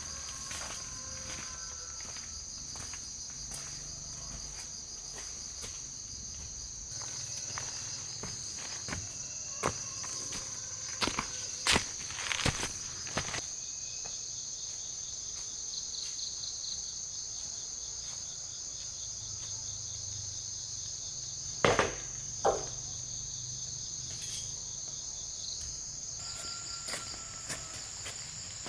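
Steady high-pitched buzzing chorus of rainforest insects. A scattering of sharp knocks and snaps cuts through it, the loudest in a cluster about twelve seconds in and a pair about twenty-two seconds in.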